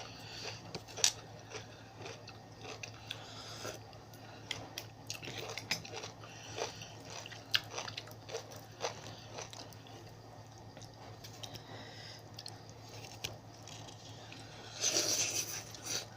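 Close-up chewing and crunching while eating spicy seafood papaya salad, with many scattered sharp clicks and a louder noisy burst near the end.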